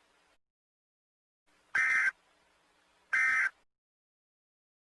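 Emergency Alert System end-of-message data tones (SAME digital bursts): two short, identical bursts about a second apart, marking the end of an alert message.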